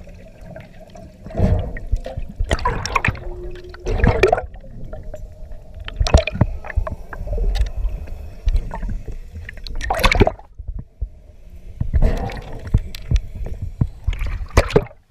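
Water moving and bubbles rushing over an underwater camera housing, in irregular swells, with sharp clicks and knocks of gear against the housing.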